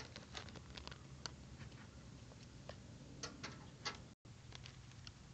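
Faint, scattered small clicks and ticks over a low steady background hum, with a brief cut-out of all sound about four seconds in.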